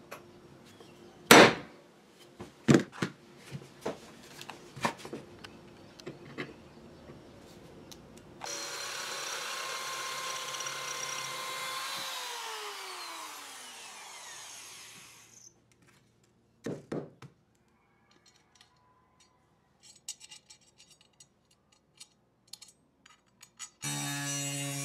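Hammer striking a steel centre punch on angle iron several times, with one hard blow about a second in. Then an electric drill runs steadily for several seconds, boring holes in the angle iron, and winds down with a falling whine. Near the end an angle grinder starts cutting the steel.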